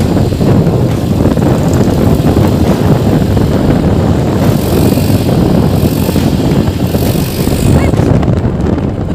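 A motorcycle riding along at steady speed, its engine and the rush of wind on the microphone making a loud, steady rumble.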